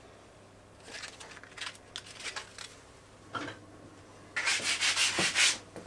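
Sandpaper on a handmade walnut sanding block rubbed briskly over wood: a burst of quick rasping strokes lasting about a second near the end, after a few faint scrapes and handling sounds.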